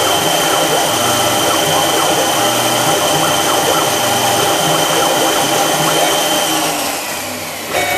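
Machine spindle running a tiny drill bit, under 1/16 inch, down through the centre of brass set screws: a steady, loud whine. The whine fades and the level dips about seven seconds in, then a new steady tone starts abruptly at the very end.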